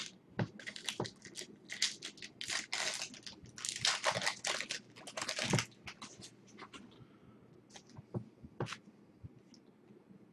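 Foil wrapper of a trading-card pack crinkling and tearing as it is opened: a run of crackling rustles for about six seconds, followed by a few light clicks and slides of the cards being handled.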